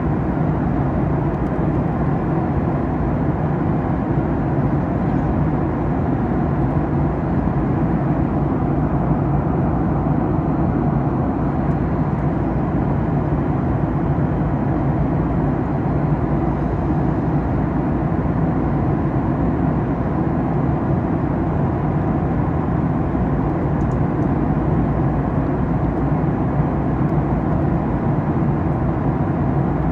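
Steady in-cabin noise of a Boeing 737 MAX 8 at cruise: its CFM LEAP-1B turbofans and the airflow over the fuselage make an even, low drone with a hiss above it, unchanging throughout.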